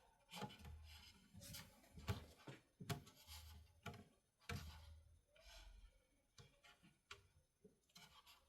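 Faint rubbing and scattered light clicks of fingers pressing and moving strip caulk into a plastic tail light housing.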